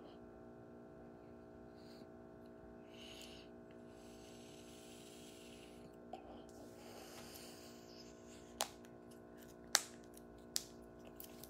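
Faint puffs of breath as a vape pen is drawn on and exhaled, over a steady low hum. Then four sharp taps or clicks come in the last few seconds and are the loudest sounds.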